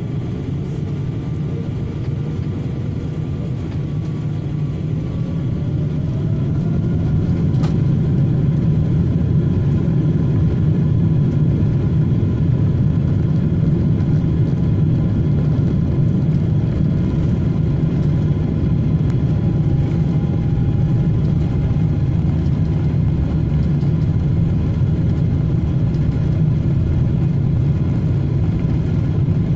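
Steady low engine rumble with a faint whine that rises in pitch over the first several seconds as the sound grows louder, then holds level.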